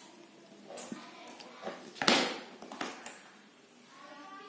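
A few separate knocks and clicks from hands handling items on a workbench, the loudest about two seconds in.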